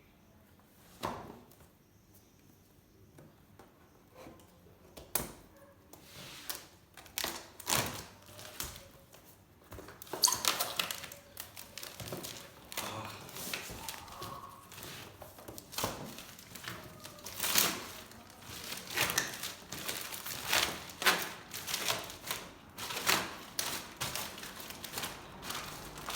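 Cardboard box and packaging being handled and opened by hand: irregular knocks and thuds with rustling and crinkling. It is sparse at first and gets busier after about six seconds.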